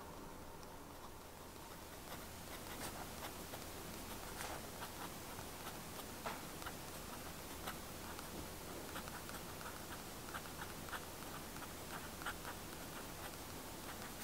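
Fountain pen nib scratching across paper as it writes, a quiet run of small scratches and ticks from each stroke, sparser for the first couple of seconds and then steady.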